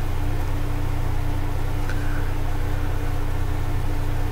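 Steady low hum with a faint constant tone above it and a light hiss, unchanging throughout.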